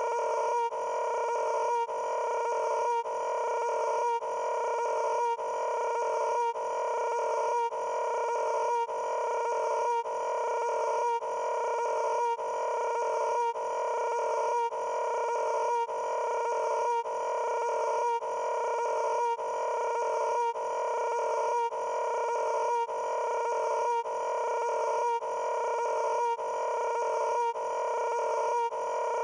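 A steady buzzing tone with strong overtones, cut into identical pieces that repeat without change about every three-quarters of a second: a short sound effect playing in a loop.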